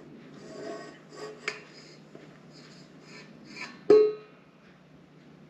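Flour and baking soda sliding and rustling out of a tipped stainless steel mixing bowl into another steel bowl, with soft scraping. About four seconds in the steel bowl knocks against the other with a sharp clank that rings briefly.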